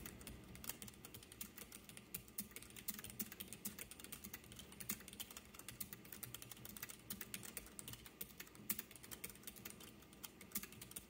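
Fast typing on a Keychron K3 low-profile keyboard with red optical switches, struck somewhat hard: a quick, even stream of light key clicks. Faint overall; these switches are pretty quiet.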